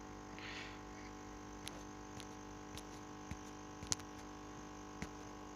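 Faint steady hum of an electromagnetic aquarium air pump muffled inside a foam-lined box, with a few light clicks and taps. The foam insulation has reduced the pump to a low, barely audible drone.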